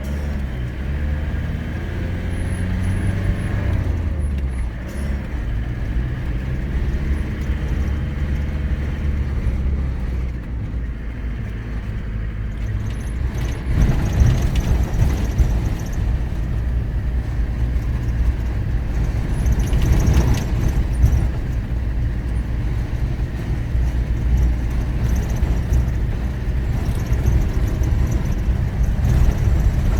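Car driving, its engine running under a steady low rumble of tyres and road noise; the engine note shifts in the first few seconds, and the rumble grows rougher and louder about halfway through, as on an unpaved road.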